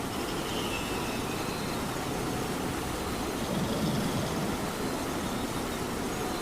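Steady rain with a cat snoring: one low snore swells up a little past the middle.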